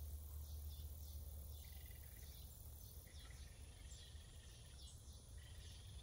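Faint outdoor ambience: quiet high insect and bird chirps over a steady low hum.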